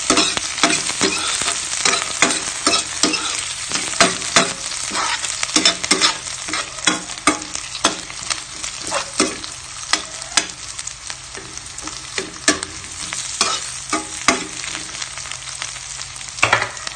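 Sliced red onions and garlic sizzling in hot oil in a metal pan, being sautéed until they wilt, while a spatula stirs them, scraping and clicking against the pan many times.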